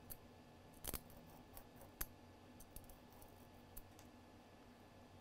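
Faint, sparse clicks of tweezer tips against a tweezer grindstone as the tips are worked along its groove to reshape a worn tip, the clearest about one and two seconds in.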